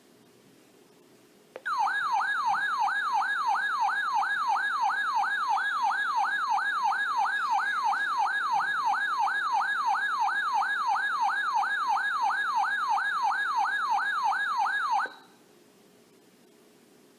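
Electronic emergency alert tone warbling rapidly up and down, about three sweeps a second, announcing a weather warning. It starts about a second and a half in and cuts off suddenly near the end, leaving faint radio hiss.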